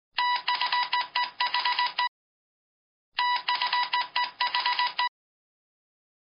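Telephone ringing twice, each ring a rapid electronic trill about two seconds long, with about a second's pause between the two rings.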